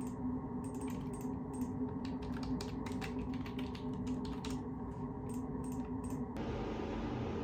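Typing on a computer keyboard: irregular, quick keystroke clicks over a steady low hum. The clicks stop abruptly about six seconds in, giving way to a steady hiss.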